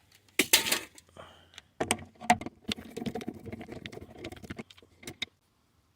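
A screw being worked out of a car's plastic interior door trim with a screwdriver: a run of sharp clicks and light rattles, loudest just after the start, with fainter handling noise in the middle.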